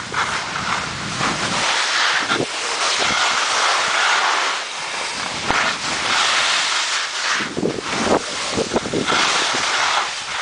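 Rushing hiss of skiing on a packed-snow piste: skis scraping over the snow mixed with wind buffeting the microphone, swelling and fading repeatedly, with a few sharper scrapes about eight seconds in.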